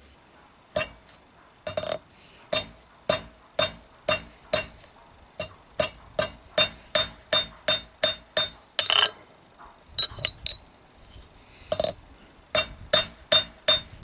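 Hammer striking a bent steel rod on an anvil to straighten it: a long series of ringing metallic blows, about two a second, with a couple of short pauses in the second half.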